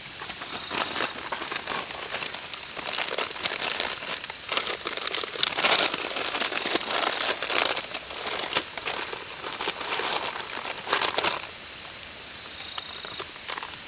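Wood campfire crackling and popping in dense irregular snaps, with louder bursts about six and eleven seconds in, over a steady thin high-pitched tone.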